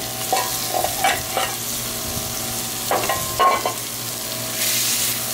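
Cheese-topped beef burger patty sizzling on a Blackstone propane griddle, a steady frying hiss. Two small clusters of short metallic rings and scrapes come in the first four seconds, and the sizzle turns brighter near the end.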